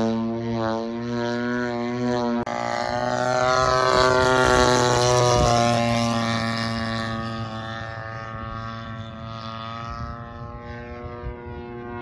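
Two-stroke GP-76cc gasoline engine of a large RC aerobatic plane, turning a 24x9 propeller in flight with a steady droning note. About three seconds in it grows louder and its pitch bends as the plane makes a low pass. It fades again after about eight seconds as the plane climbs away.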